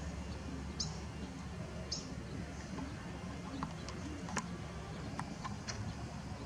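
Outdoor background: a steady low rumble with two short, high bird chirps, about a second in and again a second later, and a few faint sharp ticks later on.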